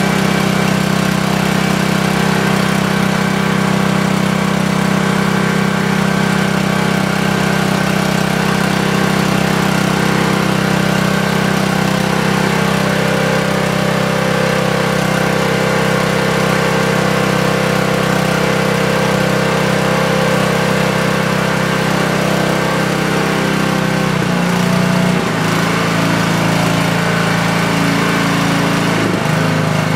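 Brand-new Honda GX200 single-cylinder four-stroke engine running steadily on its first run. About 24 seconds in its speed drops to a lower, steady note, and it shifts again near the end as a hand works the controls.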